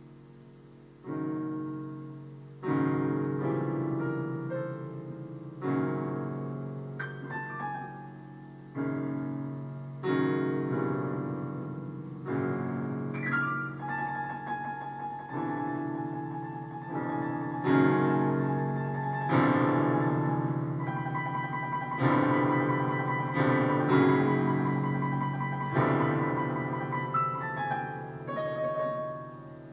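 Improvised piano music on a digital piano. Chords are struck every second or two and left to ring and fade over a held low bass. It starts soft, and the first chord comes about a second in.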